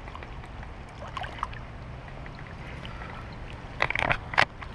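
Steady low rumble of wind and lapping water, with a cluster of sharp clicks about four seconds in.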